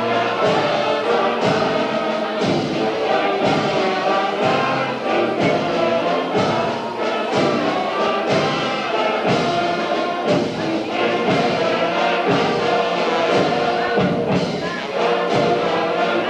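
Amateur wind band playing live, brass to the fore, over a steady drumbeat of about two strokes a second.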